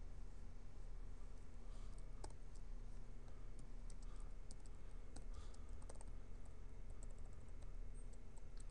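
Typing on a computer keyboard: soft, irregular key clicks over a steady low hum.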